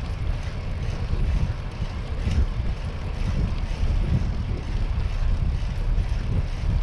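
Wind buffeting the microphone of a camera riding on a moving bicycle: a steady, low, fluttering rumble of rushing air.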